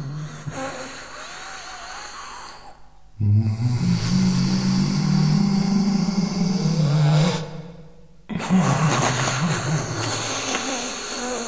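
Free-improvised extended-technique voice and double bass: low, breathy, held sounds in three phrases. A loud low sustained phrase starts about three seconds in and ends with a rising glide, breaks off briefly, then a new phrase starts.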